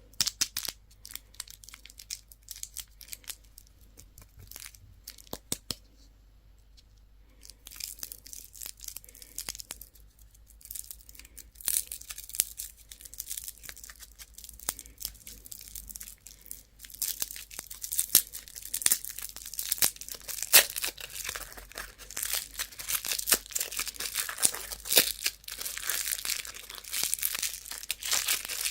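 Candy wrappers being handled and torn open: a few scattered clicks and crackles at first, then from about eight seconds in, dense crinkling and tearing of wrapper material, heavier and louder from about seventeen seconds in.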